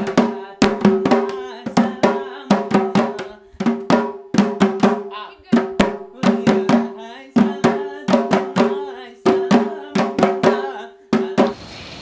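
Acehnese sitting body-percussion dance: quick rhythmic claps and slaps on the body over voices singing a held melody. It cuts off suddenly near the end.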